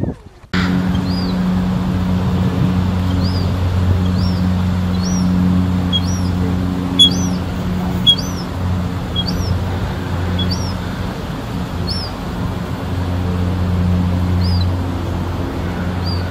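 A small bird repeating a short high chirp about once a second, with fewer chirps near the end, over a steady low hum. Two sharp clicks come about seven and eight seconds in.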